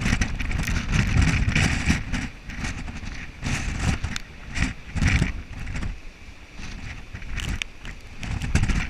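Hurricane-force wind gusting and buffeting the microphone, coming in uneven surges with a heavy low rumble.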